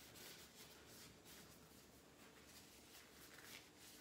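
Near silence: faint room tone with a few soft rustles.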